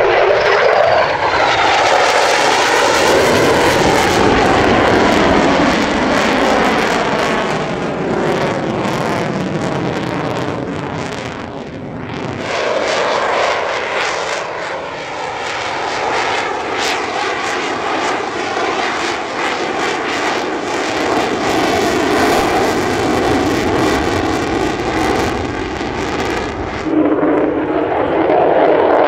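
Lockheed Martin F-35 Lightning II's single Pratt & Whitney F135 jet engine as the fighter manoeuvres overhead: loud, continuous jet noise whose tone sweeps up and down as it passes. It eases off about twelve seconds in, then builds again.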